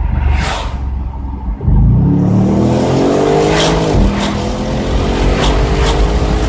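Audi RS6 C7's twin-turbo V8 running low and steady, then about a second and a half in accelerating hard. The engine note rises, drops sharply at an upshift about four seconds in, and climbs again through the next gear, with a few short sharp cracks during the pull.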